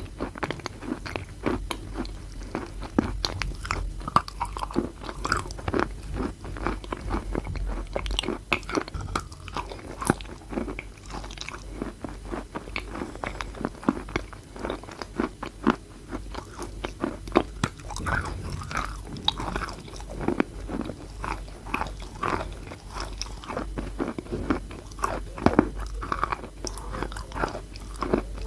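A person biting and chewing chalk close to the microphone: a steady run of irregular crisp crunches and chewing, with no speech.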